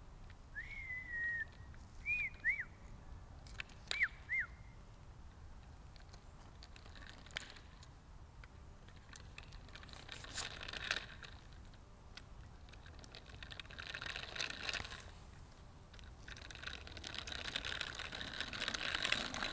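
Small child's bicycle with training wheels rolling over an asphalt street, its tyres making a rolling noise that comes and goes in stretches and is loudest near the end as it comes close. A handful of short high whistled chirps in the first few seconds.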